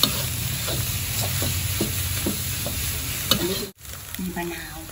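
Instant noodles and egg sizzling in a metal wok, stirred and scraped with a metal spatula that clicks against the pan about every half second. The frying sound drops away abruptly near the end.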